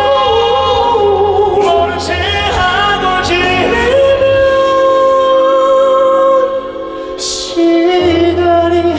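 Live pop ballad: male vocalists singing over band backing, holding long, steady notes.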